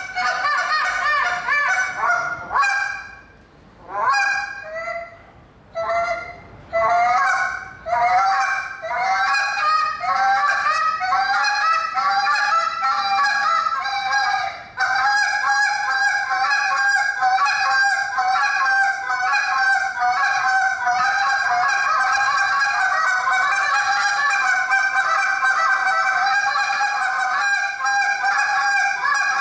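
Handheld goose call blown by a contest caller, imitating Canada geese with rapid honks and clucks. The calling comes in short runs with gaps a few seconds in, then from about eight seconds on it becomes a fast, unbroken string of clucks and honks.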